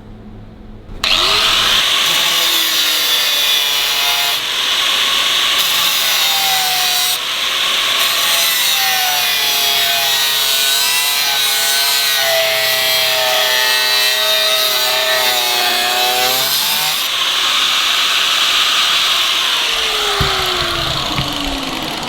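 Power tool squaring off the end of a small piece of steel bar. It starts abruptly about a second in and runs steadily with a wavering whine through the cut. Near the end it is switched off, and the motor's pitch falls as it spins down.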